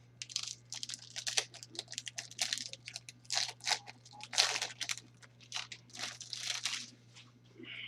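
Crinkling, crunching and tearing of trading-card packaging and cards being handled: a string of irregular short rustles and scrapes, as a wrapper is torn open and cards are shuffled.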